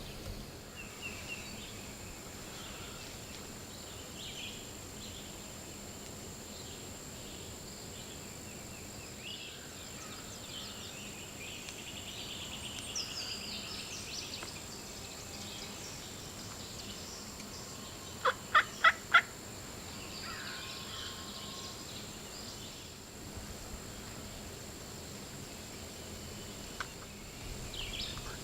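Wild turkey gobbler gobbling once, a fast rattle of about four notes, over faint songbird chirps.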